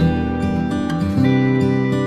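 Background music with plucked acoustic guitar playing chords.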